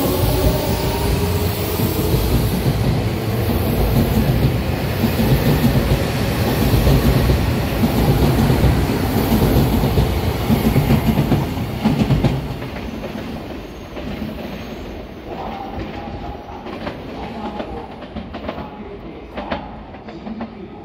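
Odakyu Line electric commuter train pulling out along the platform. Its motors give a whine that rises in pitch at the start, then the cars run past with loud wheel and rail noise and clickety-clack. The noise drops away after about twelve seconds, leaving a few fainter clicks near the end.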